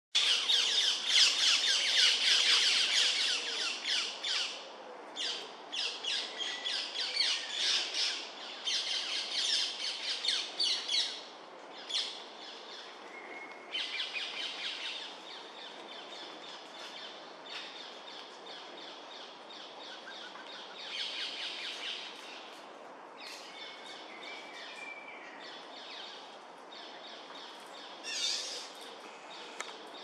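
Birds chirping in rapid bouts, densest and loudest for the first four seconds, then in shorter spells, with a few thin whistled notes in between.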